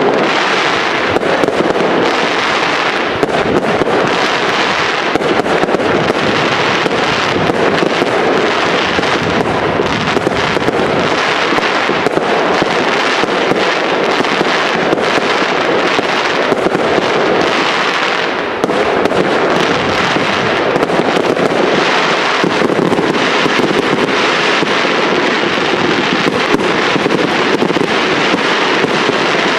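Aerial fireworks in a dense barrage: many shells going off in rapid, overlapping bangs and crackles that merge into a continuous loud din, with a brief dip about eighteen seconds in.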